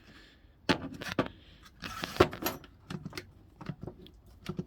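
Scattered clicks, knocks and scraping from handling a homemade phone clamp as it is tried out for the first time, the loudest knock about two seconds in.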